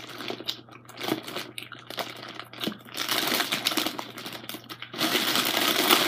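Clear plastic bag of penny candy crinkling and rustling as a hand rummages in it, the crinkle becoming denser and louder about halfway through.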